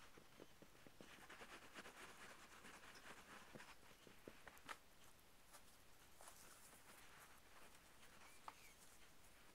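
Near silence: quiet room tone with a faint rustle for a couple of seconds and a few soft ticks.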